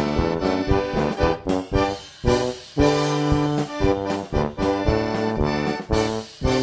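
Upbeat instrumental background music, a tune of short, bouncy chords over a steady beat.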